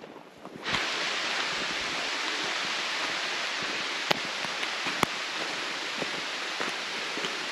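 A steady, even rushing hiss that cuts in abruptly under a second in and holds level, with two sharp ticks about four and five seconds in.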